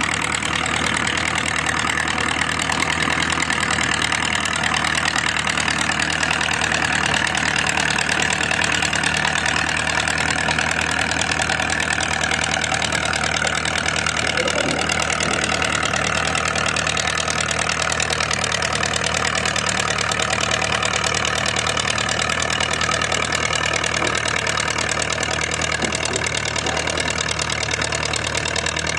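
Antique farm tractor engine running steadily under load as it tows a weighted stone-boat sled in a tractor pull.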